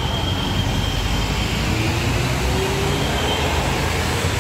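Tour bus diesel engine running at close range, a steady low rumble with a faint thin high whine over it.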